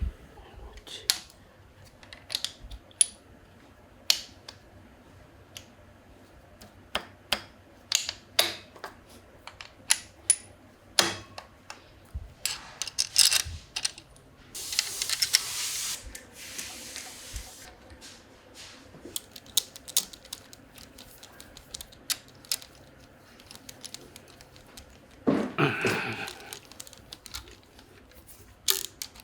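Irregular sharp metallic clicks and clinks of tools and engine parts being handled during an engine teardown. A hiss of about a second and a half comes midway, and a short rough burst of sound near the end.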